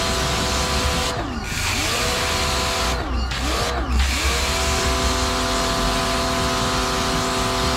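Muc-Off battery-powered pressure washer spraying, its pump motor whining over the hiss of the water jet as it rinses a bike drivetrain. The motor note drops and climbs back about a second in and twice more around three to four seconds in, as the trigger is let go and squeezed again.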